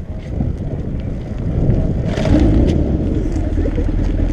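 Motorcycle being push-started: it rolls with low road and wind rumble, then about two seconds in the engine catches with a burst and keeps running steadily.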